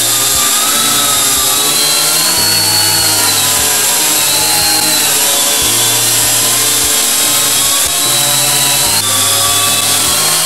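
Syma X8G quadcopter's motors and propellers spinning at speed: a loud, steady whir with a whine that slowly wavers up and down in pitch.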